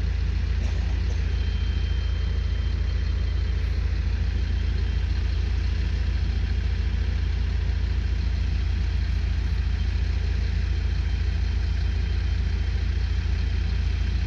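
An engine idling steadily with a low rumble. About two seconds in, a faint high-pitched steady tone from the laser level receiver on the grade rod sounds for a couple of seconds.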